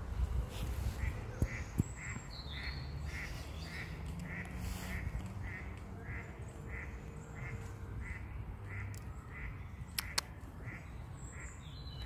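An animal calling a long, steady series of short, evenly spaced calls, about three a second, with two sharp clicks about ten seconds in.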